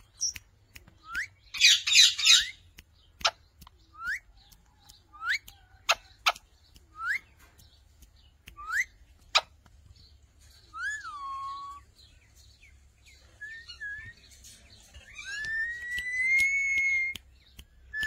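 Alexandrine and Indian ringneck parakeets calling: a string of short rising whistled chirps, a loud harsh squawk about two seconds in, and a few sharp ticks. Near the end comes one long drawn-out whistle.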